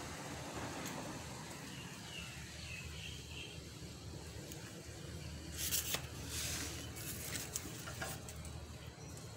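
Quiet garden ambience with a steady low hum and a few faint high chirps, then a brief rustle about six seconds in, followed by a few light clicks.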